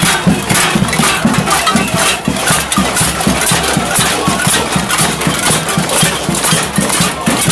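A crowd banging on pots and pans in a cacerolazo protest: a loud, uneven clatter of metallic clanks, several a second, with many strikers overlapping.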